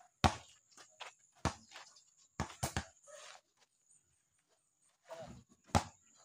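Basketball bounced on bare hard-packed dirt: about six dull, sharp thumps at uneven spacing, three in quick succession around the middle and a last one near the end.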